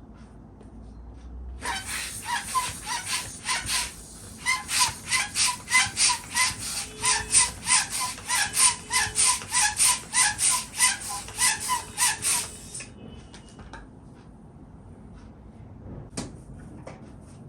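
Balloon being inflated with a hand pump: quick, even pumping strokes, about three a second, each a short hissing puff with a faint pitched note. They pause briefly once and stop about two-thirds of the way through, followed by a single click near the end.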